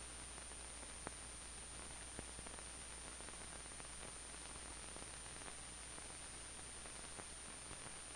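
Background noise of an old film soundtrack: a steady hiss over a low hum and a thin, high, steady whine, with scattered faint clicks and crackles.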